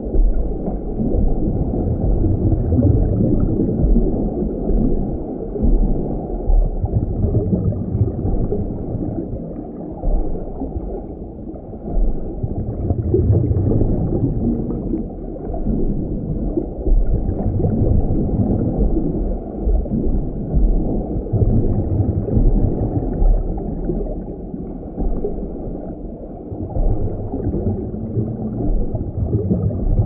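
Underwater ocean ambience: a low, muffled rumbling wash of water that swells and eases every few seconds.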